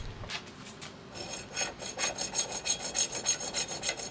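Hacksaw cutting through a solid brass round bar clamped in a vise, in quick, even rasping strokes of about four a second. The strokes get louder after the first second.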